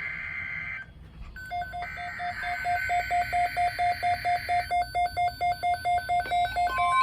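NOAA Weather Radio alert on a weather radio receiver. Buzzy SAME header data bursts are followed by the receiver's rapid alarm beeping, about seven beeps a second, which starts about a second and a half in and grows louder. Near the end the steady NOAA warning alarm tone comes in.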